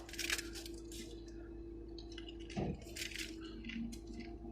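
Faint scattered clicks and light taps over a steady low hum, with one soft thud about two and a half seconds in.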